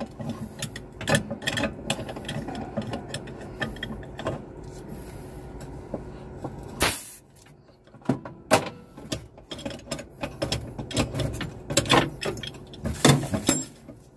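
Irregular clicks and metallic knocks of hand tools working the line fittings on an aircraft crew oxygen cylinder as the lines are disconnected. A brief louder scrape comes about halfway through.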